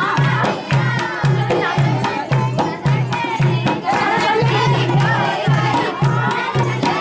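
Dehati folk song: singing over a steady drum beat, about two beats a second, with rattling percussion.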